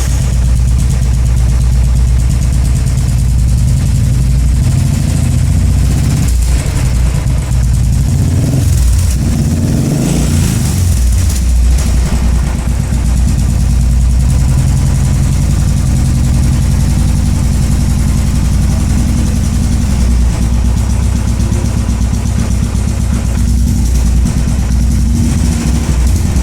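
Royal Enfield single-cylinder engine idling through an aftermarket Gold Star silencer, with a deep, steady exhaust note. It is revved once, about ten seconds in, and then settles back to idle.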